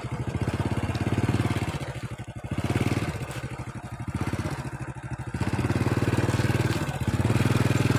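Small motorcycle engine running at low speed while being ridden slowly over a dirt track, its sound swelling and easing several times as the throttle is opened and eased off.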